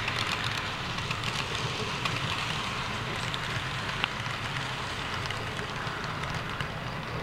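HO-scale model freight train rolling past close by: a steady rumble of small metal wheels on the rails, with a constant crackle of tiny clicks.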